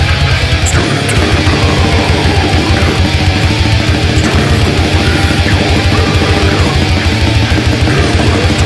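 Death metal recording: heavily distorted electric guitars over fast, relentless drumming, with a brief break in the low end about a second in.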